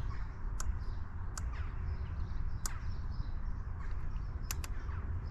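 A hand tool working the fork-stem mount fastener, giving a handful of sharp, separate metallic clicks at uneven intervals, two of them in quick succession near the end, over a steady low rumble.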